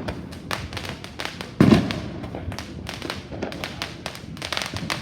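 Fireworks going off: a dense crackle of sharp pops, with one louder boom about a second and a half in.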